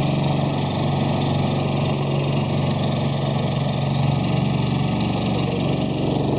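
Boat motor running at a steady speed, with a continuous hiss of water and wind over it.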